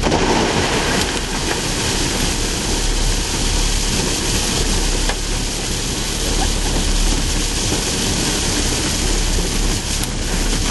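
Rocks pouring from a loader's bucket into a truck bed, heard from inside the truck's cab: a steady dense rumble and clatter of stone on metal and on stone.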